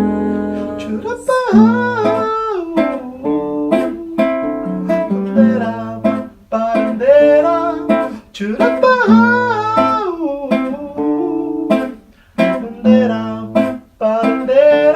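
Acoustic guitar playing chords in a song's instrumental break, with a wordless melody line gliding over it twice.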